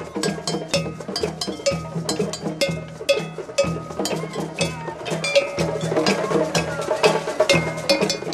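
Hand drum circle: several djembes played together in a fast, steady rhythm, with a metal double bell struck in time over the drums.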